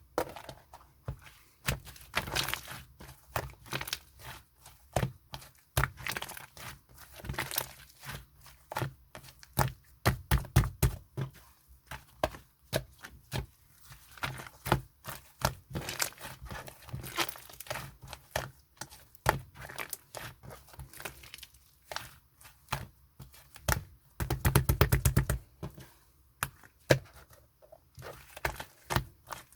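Green slime being squished and pulled by hand, making irregular sticky clicks and pops. About three-quarters of the way through comes a quick run of many clicks in a row.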